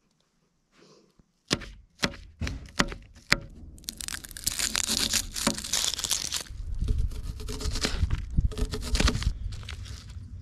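Papery onion skin crackling and tearing as an onion is peeled and cut with a knife by hand, after a few sharp knocks; the crackling is loudest a few seconds in, and a low rumble runs under the later part.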